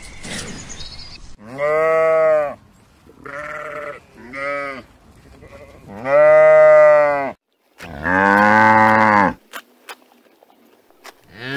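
Sheep bleating in a series of drawn-out calls: two short ones and several lasting about a second each, with another call starting right at the end.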